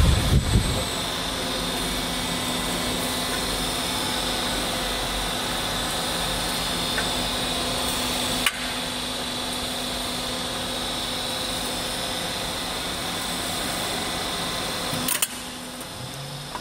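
Hat-profile roll forming machine running, a steady motor and hydraulic pump hum with a few constant tones. Two sharp knocks come through it, one about halfway and one near the end, after which the running sound eases slightly.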